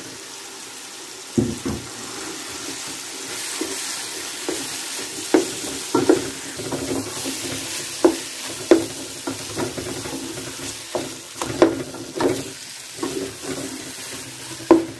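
Saag (mustard-green purée) sizzling in hot oil and masala in a pot as a wooden spoon stirs it, with irregular knocks of the spoon against the pot.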